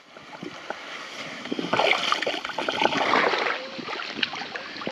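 Water splashing and sloshing as someone wades through nearly waist-deep water, busiest from about two to three and a half seconds in.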